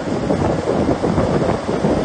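Wind buffeting the microphone over heavy earthmoving machinery working, an irregular low noise with no clear beat.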